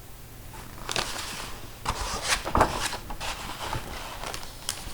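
Paper rustling and soft knocks of a picture book being handled, its pages turned, in a few short bursts.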